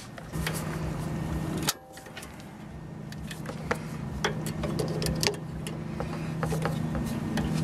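Wire cutters clicking and snipping at the baling wire wrapped around a disc-brake caliper as a makeshift retaining clip, several short clicks, over a steady low engine hum. The hum drops out sharply about two seconds in and then slowly builds back.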